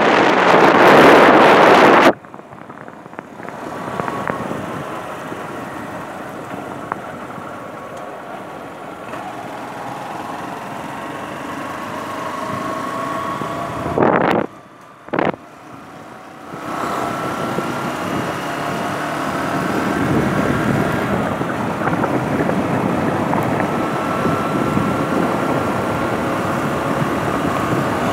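Road vehicle driving along, heard from on board: steady engine and road noise with a faint engine tone slowly rising and falling, and wind rushing across the microphone at the start. The sound drops away briefly about halfway through, then comes back louder.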